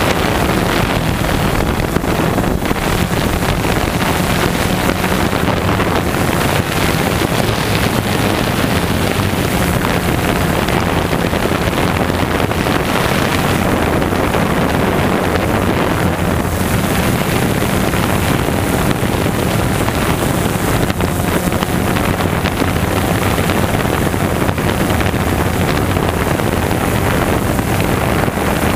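Multirotor drone's electric motors and propellers running steadily, heard from the drone's own onboard camera, a constant hum with low steady tones under a rush of wind over the microphone.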